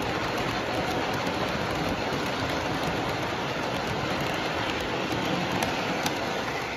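Model train freight cars rolling past close by on curved track: a steady rush and rattle of metal wheels on the rails, with light clicks at the track joints.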